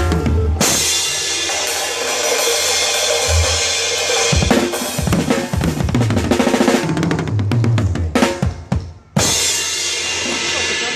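Drum kit played live: kick drum, snare and cymbals, with a dense run of drum hits in the middle, a brief break about nine seconds in, then a cymbal crash ringing on.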